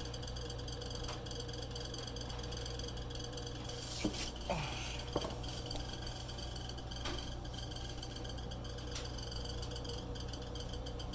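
Refrigerator running with a steady low hum and faint high whine. About four to five seconds in come a few short chirps and squeaks, one falling in pitch. The owner suspects a failing condenser fan motor, and cleaning the fan has not stopped the noise.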